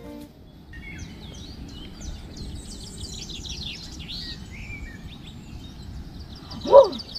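A flock of small birds chirping, many short high calls overlapping, over a steady low outdoor hiss. A music track stops right at the start, and a single loud short call cuts in near the end.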